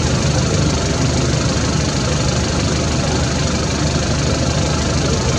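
An engine idling steadily, a constant low hum with hiss over it.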